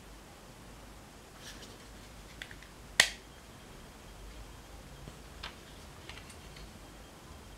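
Plastic clicks from a handheld infrared thermometer's grip as hands work its battery compartment cover, with one sharp loud snap about three seconds in and a few fainter clicks before and after.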